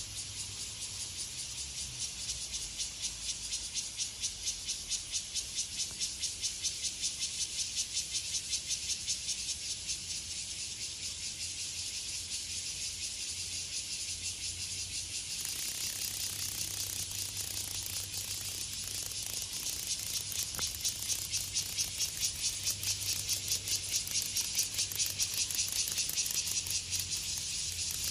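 Cicada buzzing: a high, dense, rapidly pulsing rasp that gets louder about halfway through and swells rhythmically towards the end.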